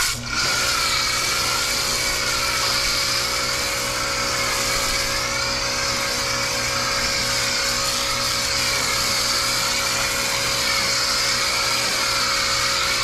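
Electric pressure washer switching on abruptly, its motor and pump then running steadily with a whine while water sprays.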